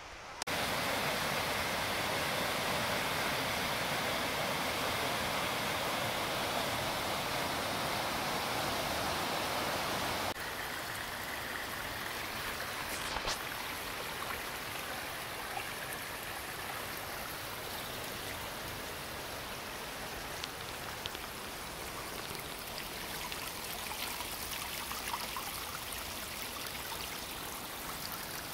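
Shallow woodland stream running over rocks and tree roots, a steady rushing of water. It is louder for the first ten seconds or so, then a little softer, with a few faint ticks.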